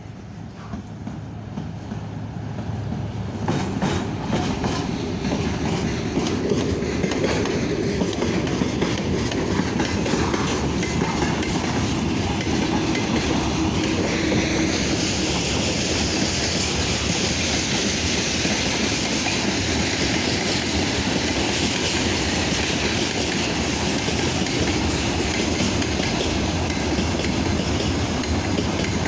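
Freight train hauled by a VL11 electric locomotive passing close by: a steady rumble of wagon wheels clattering over the rail joints. It grows louder over the first few seconds as the locomotive approaches, and a higher hiss joins about halfway through.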